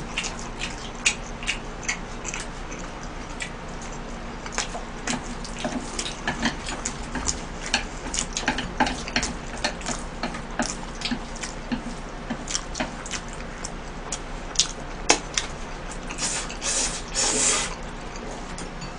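Close-miked eating of tomato-sauce spaghetti: wet chewing and slurping with many short clicks of chopsticks against a metal tray, and a longer wet slurp near the end.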